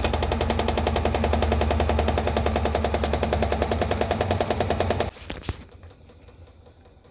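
Washing machine drain pump motor running with a steady hum and a rapid, even rattle, then cutting off abruptly about five seconds in, followed by a click. The pump impeller spins freely and the motor works, with no clog in the drain line.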